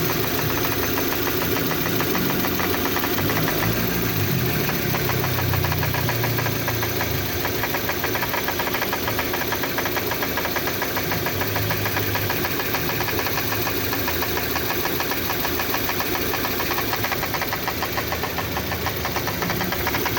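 Kia Sportage engine running with a fast, even ticking rattle over it: the mystery noise, which the owner thinks seems to come from the exhaust.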